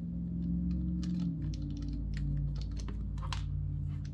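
Small electric screwdriver motor running steadily as it backs out the last screw of a knife handle. Its pitch shifts about a second in, and light clicks come through over it.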